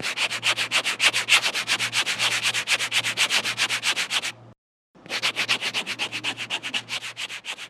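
Scribbling sound effect: rapid, even scratchy strokes on paper, about eight or nine a second, in two runs with a half-second break about four and a half seconds in.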